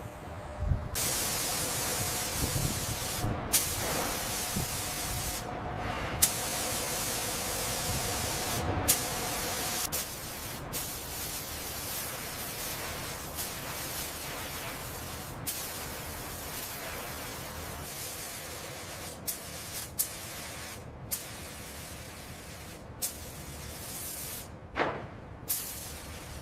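Spray gun hissing as anti-corrosion coating is sprayed on, in long passes broken by a dozen or so brief pauses.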